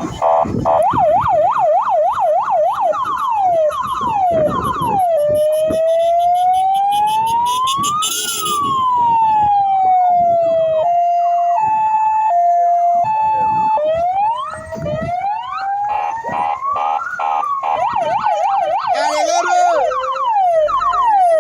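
Fire engine sirens sounding continuously and cycling through their patterns. There is a fast yelping sweep, then a slow wail that rises and falls, then a two-tone hi-lo alternation a few seconds later, then more wailing and yelping. Near the end several sirens overlap.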